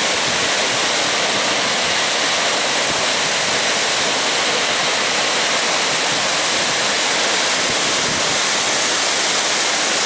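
Tad Gneuang waterfall pouring down a high cliff, heard close below it: a loud, steady rushing of falling water.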